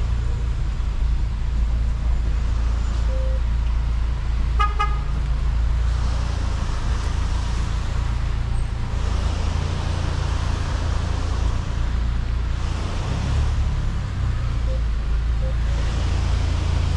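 Fiat Pulse Abarth's engine running at low speed, a steady low drone. A short horn toot sounds once, about five seconds in.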